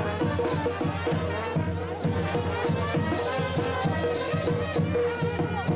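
Band music with a steady beat and a recurring held note.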